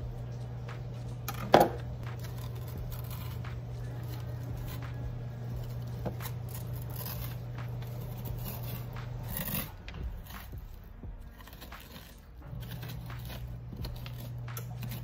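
A metal spoon scrapes the seeds and stringy flesh out of a halved spaghetti squash, with scattered clicks and taps on the rind and the plastic cutting board. One sharp knock comes about a second and a half in. A steady low hum runs underneath, cutting out for a few seconds in the latter half.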